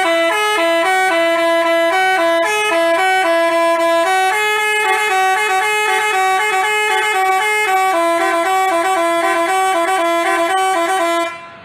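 Telolet basuri musical horn playing a tune: a loud run of quick stepped notes that stops near the end.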